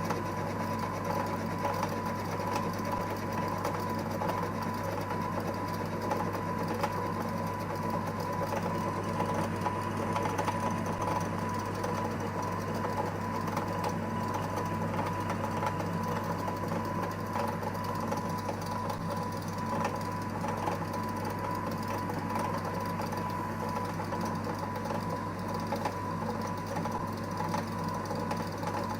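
Small EMCO Compact 5 PC bench lathe running steadily, a constant motor hum with a thin high whine.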